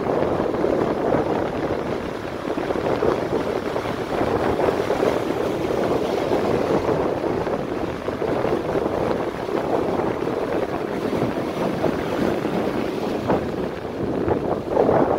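Atlantic surf breaking and foam washing up the beach, a steady rush that swells a little louder near the end, with wind buffeting the microphone.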